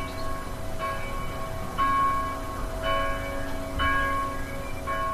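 Church bells ringing, a new stroke about once a second, each bell ringing on into the next, with the pitch changing from stroke to stroke.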